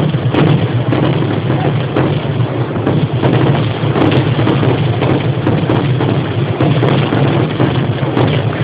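Temple fireworks display (vedikettu): a continuous dense rumble packed with rapid small cracks and bangs, without pause.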